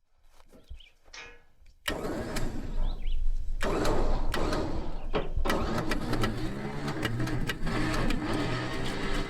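A vehicle engine starts suddenly about two seconds in and then keeps running steadily.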